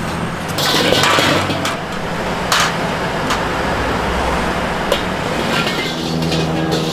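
Street-stall cooking noise: scattered knocks and clatter of cooking utensils over a steady low hum and hiss, with a louder stretch of hiss about a second in.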